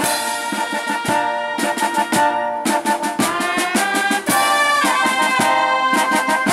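Naval military band playing: trumpets and other brass carrying the tune over beating bass and snare drums.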